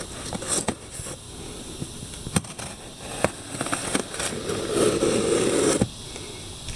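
Packing tape on a cardboard box being slit along the seam and the cardboard handled: crackling and scraping with scattered sharp clicks, loudest in a rough stretch near the end.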